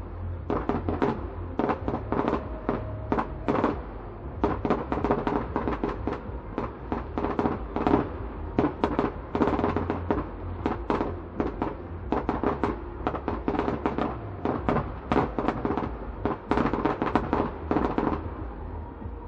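Fireworks display: aerial shells bursting in a rapid, uneven string of bangs and crackles, several a second.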